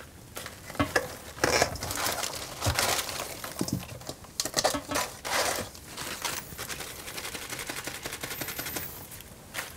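Leaf lettuce being pulled apart by hand: leaves rustling and snapping off the head in irregular crisp bursts, and being set down on a wooden cutting board.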